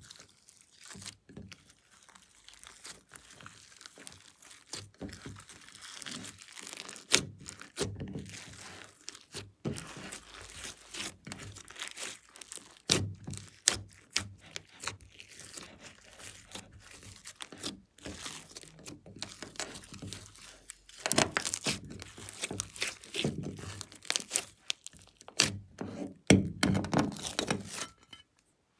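Hands squeezing and kneading thick glossy slime mixed with glitter and crushed eyeshadow in a glass dish. Wet squishing with many small crackles and clicking pops, busier and louder near the end.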